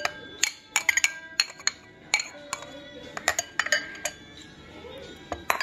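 Ceramic soup spoon clinking against a ceramic cup and bowl: a dozen or so light, irregular clinks, each ringing briefly, as soy sauce is scraped from the cup into the bowl.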